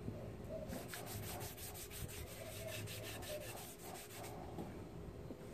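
A cloth rubbed quickly back and forth along a wooden board, applying wood stain, about six strokes a second for around three and a half seconds.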